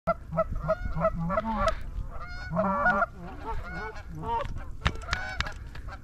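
A flock of Canada geese honking: many short, pitched calls, often overlapping, as the geese fly in.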